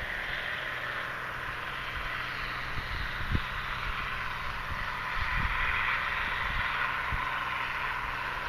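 1983 Gleaner L3 combine running steadily while harvesting wheat: a constant mechanical hum under a steady hiss, growing a little louder about five seconds in. Wind bumps on the microphone now and then.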